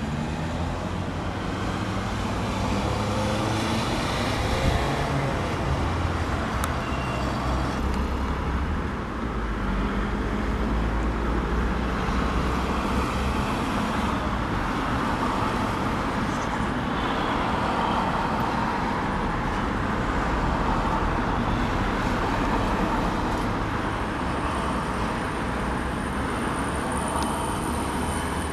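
Two Boeing CH-47 Chinook tandem-rotor helicopters flying over, a steady deep drone of rotors and engines that stays loud as they pass.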